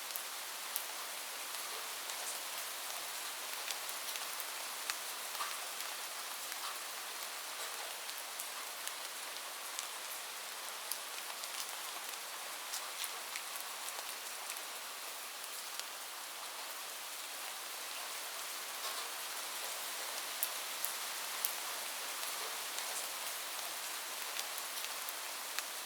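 Steady rain falling on a roof: an even hiss with many separate sharp drop ticks scattered through it.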